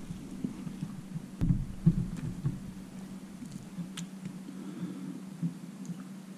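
Quiet eating sounds at a table: a few soft low thumps in the first few seconds as toast is bitten and chewed, then light clicks of a fork against a plate with fish on it. A steady low hum runs underneath.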